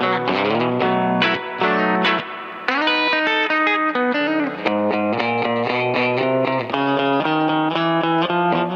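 Electric guitar, a Fender Coronado II, played through a Keeley Compressor Plus pedal into a valve amp, picking notes and chords that ring out with sharp attacks and an even, sustained level, with a longer held phrase about three seconds in.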